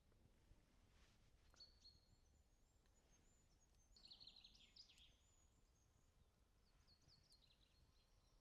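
Near silence in the forest with faint, high songbird chirps: a few short calls, a brief trill about four seconds in, and more chirps near the end.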